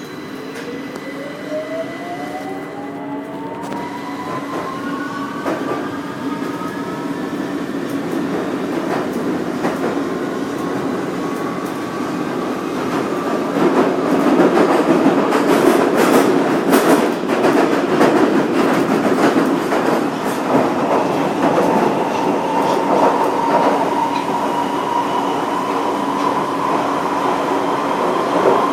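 Electric train pulling away: its motors whine in several tones that rise in pitch over the first several seconds, then the steady running noise of the wheels on the rails grows louder about halfway through.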